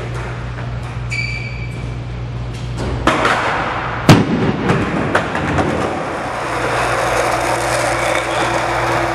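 Skateboard clatter in an indoor skatepark over a steady low hum. About four seconds in comes one sharp, loud smack, followed by scattered clicks and knocks and then a steadier rolling rumble.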